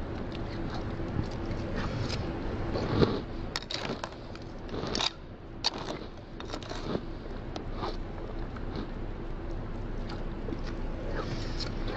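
A person eating crunchy marshmallow cereal: chewing and crunching, with the spoon clicking and scraping against a clear plastic bowl in short irregular sounds.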